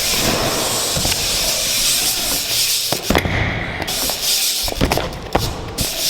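Wheels rolling fast over skatepark ramps: a steady loud hiss, broken by several sharp knocks in the second half.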